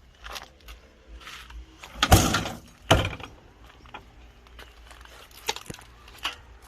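Metal knocks and clatter from the sheet-metal access door of an air compressor's housing being handled, with two loud bangs about two and three seconds in and a few lighter clicks later.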